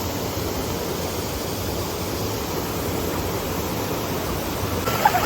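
Rushing water, a steady even rush.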